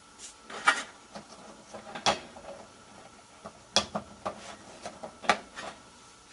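Sharp clicks and light handling noises, four clear ones a second or more apart with fainter ones between, as hands plug the wire harness onto the new water level switch and work on parts inside a Whirlpool washer's control console.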